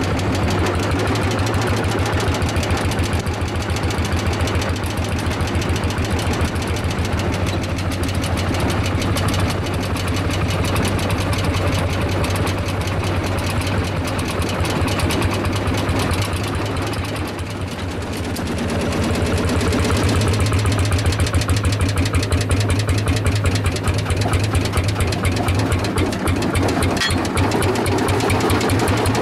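Single-cylinder two-stroke hot-bulb semi-diesel tractor engine running on the road with a fast, even chug, heard close up from the tractor itself. It eases off briefly a little past halfway, then comes back louder.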